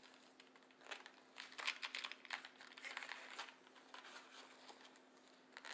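Faint rustling and crinkling from a fabric pencil pouch and a boxed pen set being handled, in short scattered bursts.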